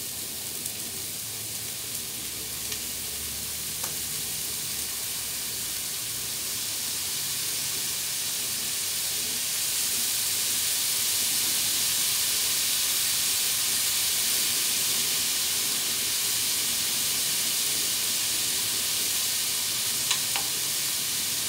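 Fried rice with chicken and bacon sizzling steadily on a hot Blackstone steel flat-top griddle, the sizzle growing louder about halfway through as Worcestershire sauce is shaken onto it.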